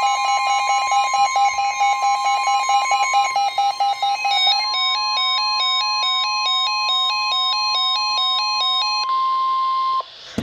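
NOAA Weather Radio 1050 Hz warning alarm tone: one steady high tone held for about ten seconds, cutting off near the end, signalling that a warning is about to be read. Over it an electronic alarm beep pulses rapidly, about eight times a second, and changes to a two-note warble about halfway through.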